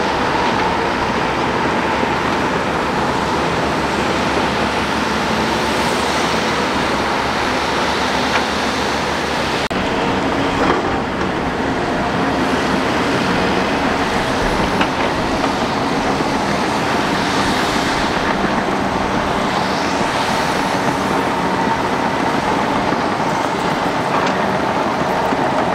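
Shantui crawler bulldozer's diesel engine running under load with its steel tracks clattering as it pushes dirt, a steady din with an occasional clank.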